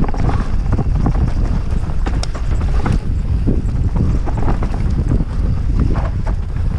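Orbea Rallon R5 29er mountain bike being ridden down a rough trail: steady wind rumble on the microphone with irregular knocks and rattles from the bike over the ground.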